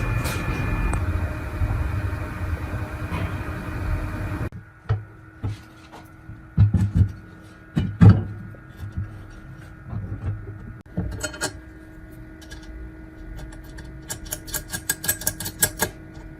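A workshop machine runs steadily, then stops abruptly. What follows is a faint steady hum with scattered knocks and clicks of metal parts being handled, and a quick run of ticks near the end.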